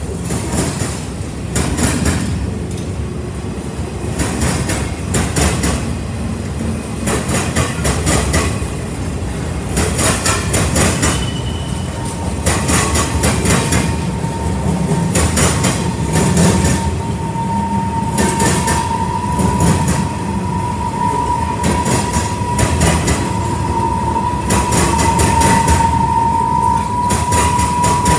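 Freight train cars rolling past: a steady rumble with quick clusters of clickety-clack as the wheels cross rail joints, a couple of seconds apart. A steady high-pitched wheel squeal comes in about halfway through and grows louder toward the end.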